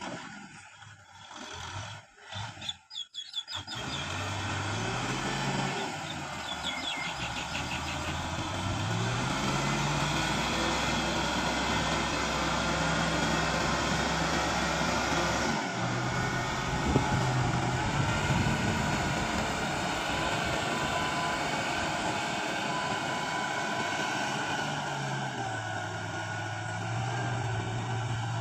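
Kubota M6040SU tractor's diesel engine working while ploughing, its pitch slowly rising and falling as the load and revs change. The first few seconds are choppy, with short gaps, before the engine sound runs on steadily.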